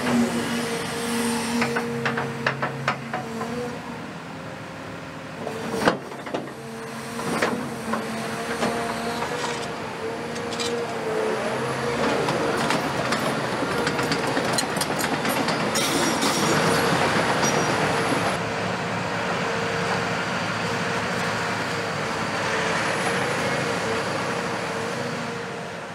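Caterpillar 340F demolition excavator's Cat C9.3 diesel engine and hydraulics running with a steady whine. Over it comes the knocking and clatter of concrete rubble and the steel bucket, with a sharp bang about six seconds in. The sound fades out at the very end.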